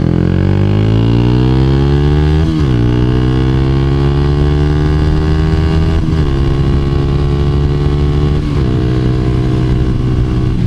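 2012 Honda CBR250R's single-cylinder engine accelerating hard through the gears. The pitch climbs in each gear and drops back at three upshifts, about 2.5, 6 and 8.5 seconds in, then holds nearly steady.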